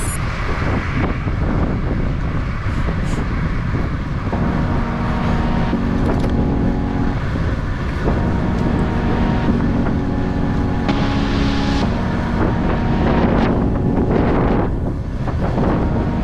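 Wind buffeting the microphone of a moving bicycle rider, with background music of sustained chords that change every few seconds.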